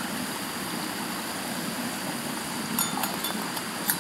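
SnowPeak LiteMax canister stove burning at full flame with a steady, noisy rush under a titanium pot of water coming to the boil. Near the end come a few light metallic clinks as the titanium lid is set on the pot.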